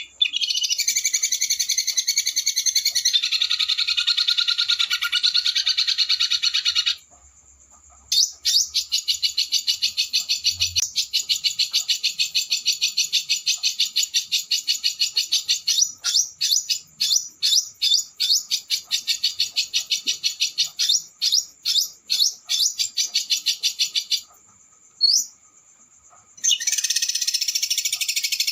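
Small songbird song recorded for masteran tutoring: fast, high rolling trills of rapidly repeated notes in long runs, with a brief gap about seven seconds in and a longer pause near the end before the trilling resumes.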